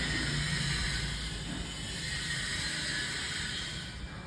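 Metal Zippo lighter being handled and turned over in the hands: small scraping and rattling, over a steady low background hum.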